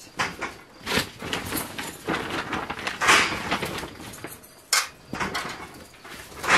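Irregular rustling and knocking of a carport's tarp cover being pulled and tucked, with knocks from an aluminium stepladder as someone climbs down it. There is a sharp knock near the end.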